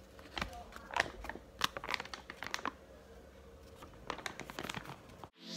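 Brown paper food wrapping crinkling and rustling as it is unfolded by hand, in scattered sharp crackles that thin out in the middle.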